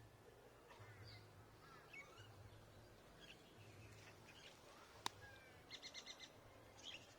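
Near silence with faint birds chirping: scattered short calls and a quick rapid trill about six seconds in. A single sharp click comes just before the trill, over a faint low hum.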